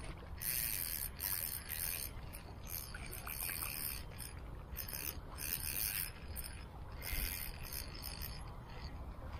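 Spinning fishing reel being cranked in short spurts while a hooked fish is played, its gears whirring in irregular bursts with brief pauses between turns.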